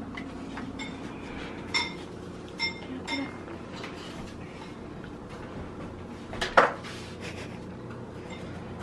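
Metal kitchenware clinking: a few sharp clinks with a brief metallic ring in the first few seconds, then a louder clatter about six and a half seconds in.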